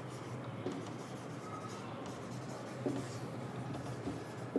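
Faint sound of a marker pen writing on a whiteboard, its tip rubbing and tapping as words are written.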